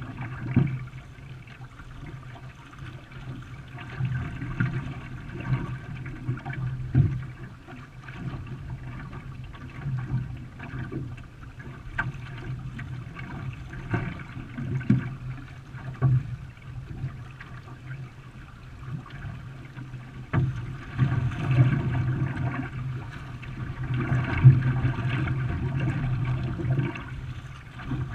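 Water splashing and sloshing around a canoe being paddled, with occasional sharp knocks.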